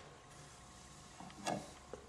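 A shellac 78 rpm record being handled and set onto the felt-covered turntable of a Victor VV-X Victrola: faint rubbing and one light knock about one and a half seconds in.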